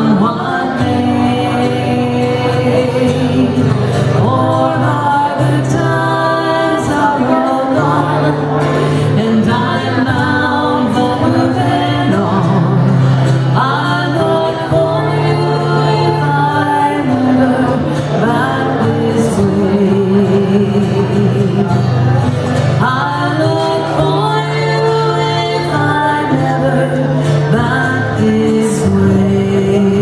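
Two women singing together, accompanied by two acoustic guitars.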